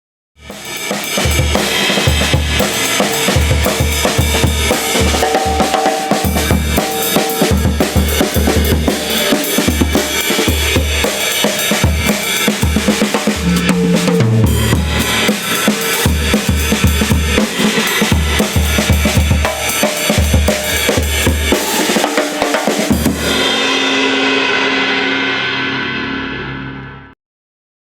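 A drum kit played loudly, a steady rhythm of bass drum and snare under busy cymbals. It ends with a sustained cymbal wash and cuts off abruptly near the end. This is the racket that the drum isolation booth is meant to contain.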